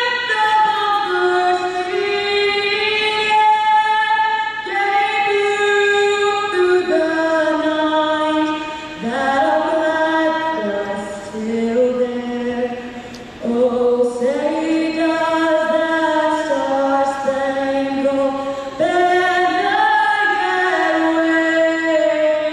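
A woman singing the national anthem solo and unaccompanied over the arena sound system, holding long notes in a slow melody.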